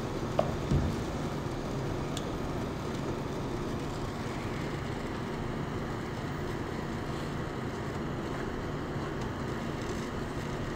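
Steady low machine hum, with two light knocks of a spatula against a metal saucepan under a second in.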